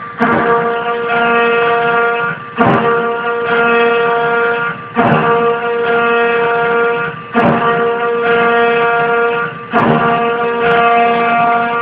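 A CNC 3040 router's spindle and end mill cutting metal with a steady high-pitched ringing whine. About every two and a half seconds the sound dips briefly and then cuts back in sharply, as the cutter re-enters the work.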